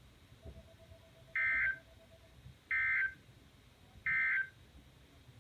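EAS SAME digital data bursts sent as the end-of-message code: three short, identical bursts of harsh, buzzy data tone about a second apart, marking the end of the alert.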